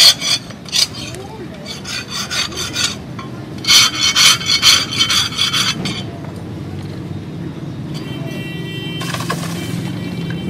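Hand file rasping across a forged leaf-spring steel cleaver blade in quick runs of strokes, stopping about six seconds in.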